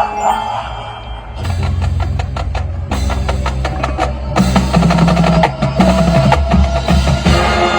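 Marching band playing its field show: after a soft opening second, the drumline plays fast, dense strokes over low held notes, and the sound grows fuller and louder just past the middle as more of the band joins.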